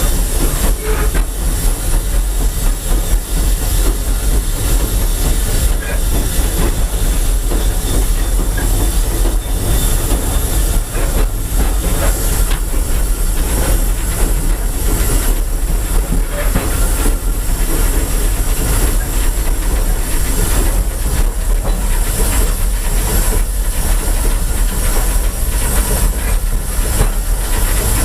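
Steam-hauled train running on the rails: a loud, steady rumble with continual clicking and rattling of wheels over the track.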